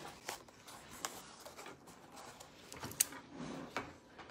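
Cardboard and craft supplies being handled on a tabletop: a few light clicks and soft rustling and scraping, the sharpest click about three seconds in.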